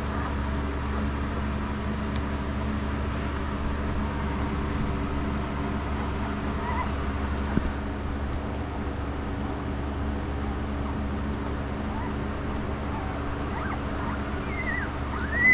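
Newborn puppies giving a few faint high squeaks and whimpers over a steady low background hum, with a louder squeal near the end.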